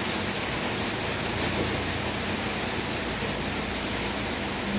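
Steady hiss of background noise with a faint constant hum underneath. No distinct knocks or clicks stand out.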